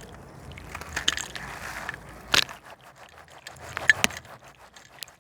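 A gritty slab crumbling in water, with scattered crackles and small snaps as pieces break away, and two louder cracks about two and a half and four seconds in.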